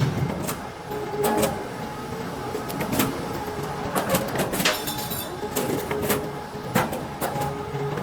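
A tube roll forming line running, with irregular sharp metallic knocks over a steady mechanical noise and a faint hum that comes and goes.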